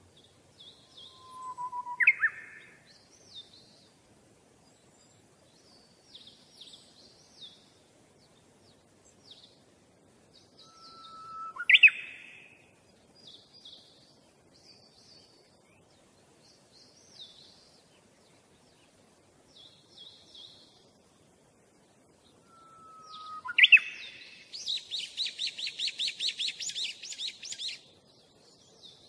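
Songbirds chirping: many short high chirps, three louder calls each made of a short whistled note and a sharp upward sweep, and near the end a rapid trill lasting about three seconds.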